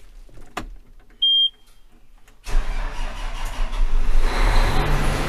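A John Deere combine started from the cab: a single short high warning beep, then about two and a half seconds in the diesel engine catches and runs on steadily, growing a little louder near the end.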